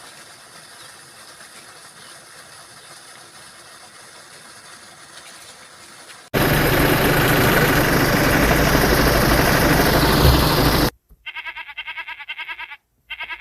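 A faint steady hiss, then a loud rushing noise that starts suddenly about six seconds in and cuts off abruptly after about four and a half seconds. Near the end come two goat bleats from an animal-sound toy, each a rapid quavering call.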